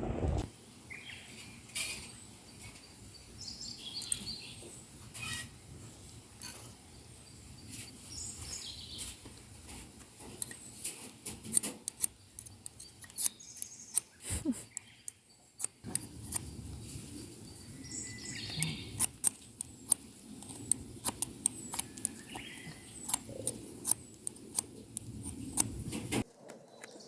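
Small songbirds chirping on and off, with a run of sharp crackles and clicks from about ten seconds in.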